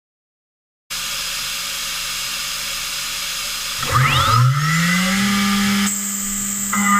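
Okuma MB-4000H horizontal machining center running with a steady hiss; about four seconds in its spindle spins up, a rising whine that levels off into a steady hum. Near the end a shrill, several-pitched tone joins in.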